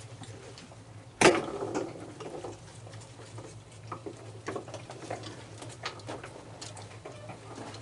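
Raccoons feeding on a wooden deck: a scatter of small irregular clicks and crunches as they eat, with one sharp knock about a second in.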